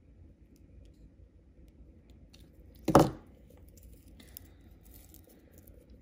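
One loud, short knock about halfway through as the steel jewellery pliers are put down on the table, among faint small clicks of metal jump rings and chain being handled.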